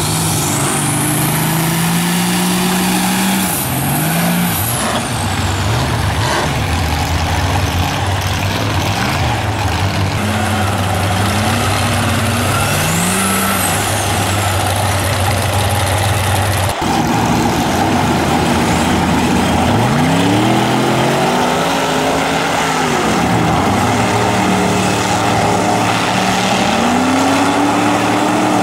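Dubbed-in sound of a full-size mega mud truck's engine, revving up and down again and again under load. A couple of high whistling sweeps ride over it, and about 17 seconds in the sound cuts abruptly and the revving picks up again.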